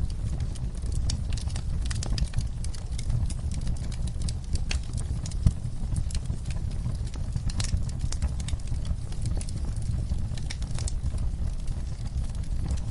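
Wood fire in a fireplace crackling: frequent sharp pops and snaps over a steady low rumble of flames, with one louder pop about halfway through.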